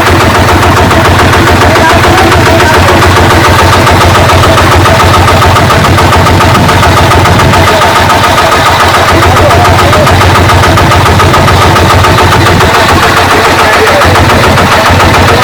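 Kubota DC-70G rice combine harvester's diesel engine running steadily under load, with a fast, even chugging pulse.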